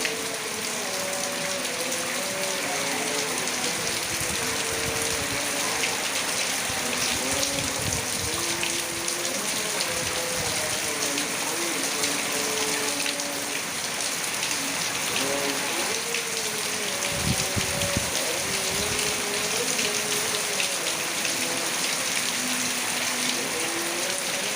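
Heavy rain falling steadily, a dense hiss of drops on surfaces. Faintly through it, a distant voice chants in long held notes, with a few low rumbles now and then.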